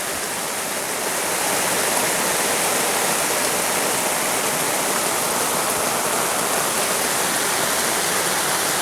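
Heavy rain pouring down, a steady hiss of water that grows a little louder about a second in.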